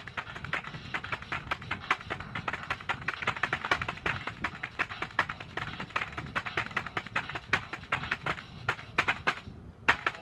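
Fast, continuous typing on a computer keyboard, many key clicks a second, with a short pause about nine and a half seconds in.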